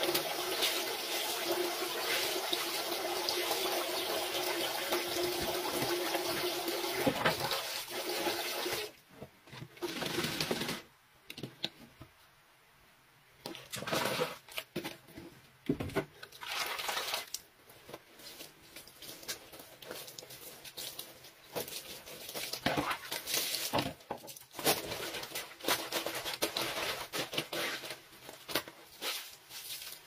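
Water rushing steadily in a concrete laundry sink, stopping about eight seconds in; after a short lull, irregular splashing and rubbing as wet clothes are scrubbed by hand on the sink's ridged washboard.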